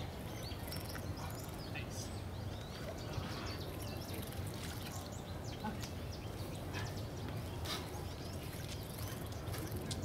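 Many small birds chirping and calling, short high chips scattered throughout, over a steady low rumble of background noise.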